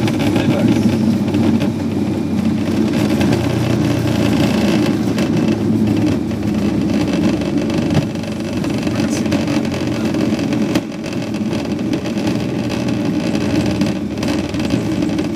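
Loud steady rumble in a Fokker 100's cockpit during the landing rollout on a wet runway: engine and runway noise as the jet decelerates. It drops a step about eight seconds in and again near eleven seconds.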